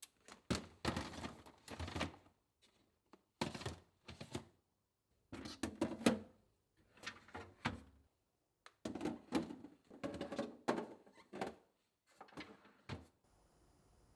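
Kitchen handling sounds: irregular knocks, clicks and thunks of things being picked up and set down, coming in short clusters with pauses, stopping about thirteen seconds in.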